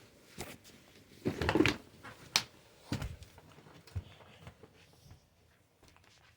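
A few sharp clicks and knocks, with a brief louder scuffle about a second and a half in, over a faint steady hiss.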